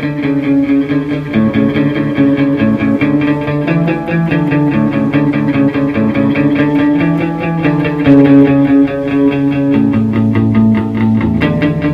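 Instrumental rock music led by guitar, with a fast even pulse over a bass line that steps to a new note every second or two.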